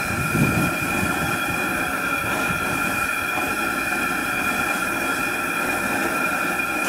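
Gas fish-fryer burner, used as a wok burner, running steadily: a constant rushing of the flame with a faint high whistle running through it.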